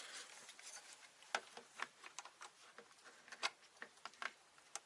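Faint, irregular small clicks and taps as a pump hose connector is worked onto a road bike tyre valve.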